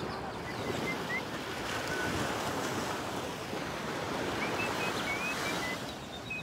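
Small waves breaking and washing up on a sandy beach: a steady rushing hiss that swells and eases, with a few faint high chirps over it.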